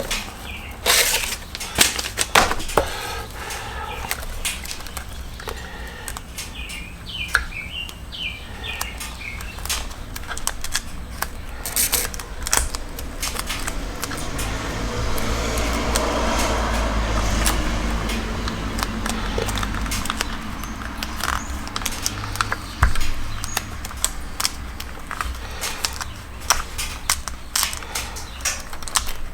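Scattered clicks, taps and rustles of hands working weather stripping around the edge of an LED headlight, with a few short squeaks about a quarter of the way in. A low rumble swells for several seconds in the middle.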